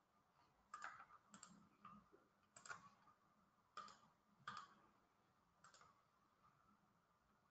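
Near silence with about half a dozen faint, separate clicks of a computer mouse and keyboard.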